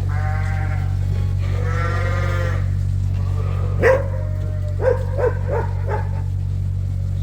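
Sheep bleating for food: two long drawn-out bleats, then a sharp short one and a quick run of four short bleats. A steady low hum runs underneath.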